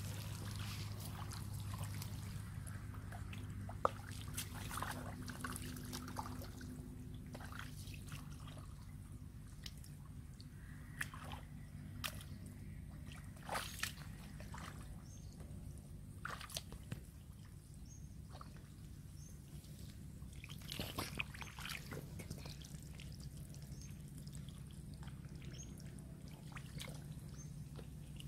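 Hands working through wet mud and shallow water: scattered squelches, small splashes and drips, over a low steady hum.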